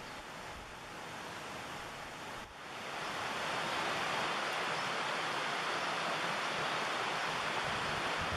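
Wind rushing over the microphone, a steady hiss that grows louder about three seconds in.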